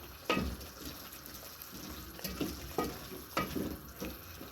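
A utensil stirring a pot of frying pilau ingredients, scraping the pot in about five separate strokes over a faint steady sizzle.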